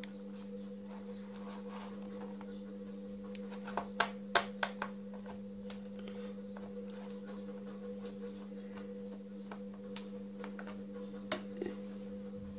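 Sharp clicks and knocks from hands handling the plastic case of an A4Tech computer keyboard being taken apart: a quick cluster of about five clicks about four seconds in and two more near the end, over a steady low hum.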